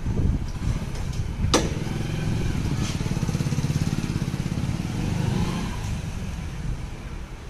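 Motorcycle engine passing by, rising in level to a peak a few seconds in and then fading away. A single sharp click about one and a half seconds in.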